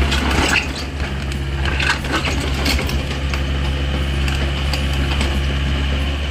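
Long-arm excavator's diesel engine running steadily under load, with irregular cracking and crunching from the material being dug.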